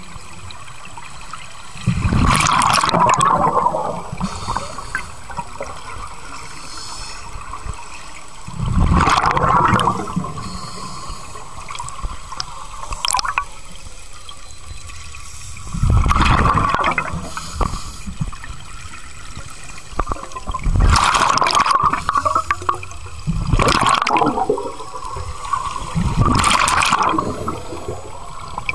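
Scuba diver's regulator breathing underwater: six gurgling bursts of exhaled bubbles, each about two seconds long and a few seconds apart, over a steady underwater hiss.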